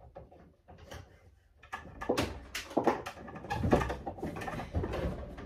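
Latex balloons squeaking and rubbing against each other as they are pushed onto the clips of a balloon arch: a run of short, irregular squeaks and rubs, faint at first and growing louder about two seconds in.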